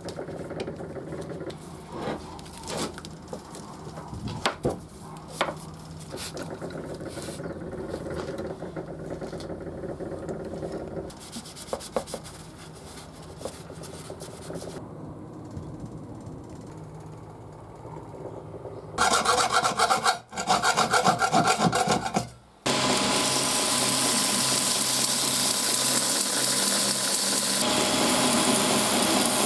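Hand rubbing and filing on a workpiece, scratchy and uneven with occasional sharp clicks. About two-thirds of the way through, a power tool starts, much louder: a few seconds of rhythmic chattering, then a brief cut-out, then a steady loud whirring run to the end.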